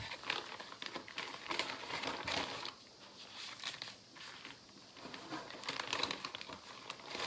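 Packaging crinkling and rustling in irregular bursts as items are handled and unpacked, quieter for a few seconds in the middle.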